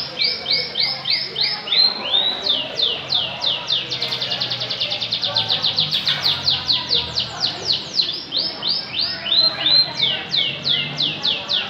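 Canary singing: runs of quick, repeated downward-sliding whistled notes, about four a second at first, breaking into a much faster trill a few seconds in, then back to slower phrases near the end.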